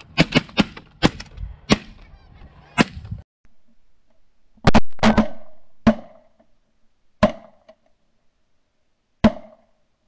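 Shotgun blasts from several hunters firing at passing geese, about seven shots in quick succession over the first three seconds. Then shots heard close from a gun-mounted camera: a further handful spaced a second or two apart, each with a short ringing tail.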